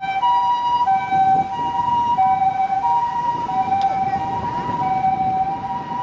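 Japanese ambulance's two-tone hi-lo siren, alternating evenly between a high and a low pitch about every two-thirds of a second, with faint traffic rumble beneath.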